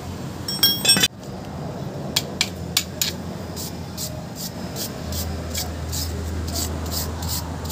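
A brief clatter of metal about half a second in, then a hand wire brush scrubbing rust off a brake disc and wheel hub in short, even strokes, about three a second.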